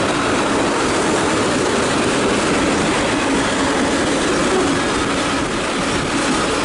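A train rolling past at track level: a loud, steady rumble and rush of cars on the rails.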